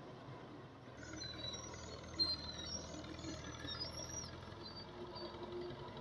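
Fiat tractor's diesel engine running steadily under load as it drags a cultivator through dry soil, its note growing stronger about a second in. High wavering chirps sound over it for a few seconds, and there is one sharp click just after two seconds.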